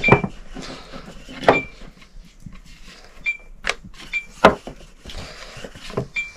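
Wooden rolling pin rolling flatbread dough on a wooden board, with sharp wooden knocks roughly once a second as pin and board clack together.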